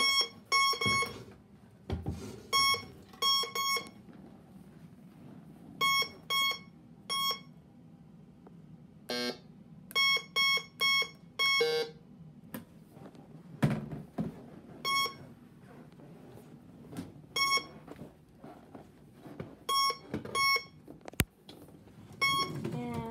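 Bounty Hunter metal detector beeping, pretty loud: short high beeps in ones, pairs and threes at uneven intervals, with one lower, buzzier tone about nine seconds in.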